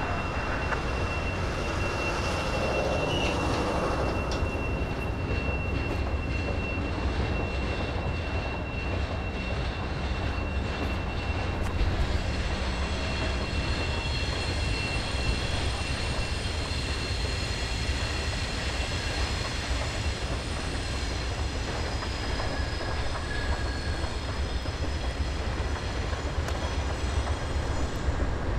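Amtrak passenger train rolling past with a steady low rumble and a thin, high wheel squeal. A little before halfway several more high squealing tones join in, as the wheels grind around the curve of the wye.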